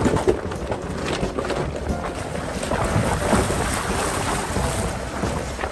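A SsangYong Rexton Sports pickup rolling slowly over a riverbed of loose stones and gravel: a dense rumble and crunch of tyres on rock, with background music under it.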